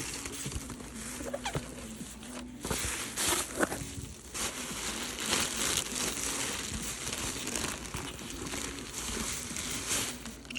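Packaging being handled and crinkled as a box is unpacked, a continuous rustling crackle with two short pauses in the first half.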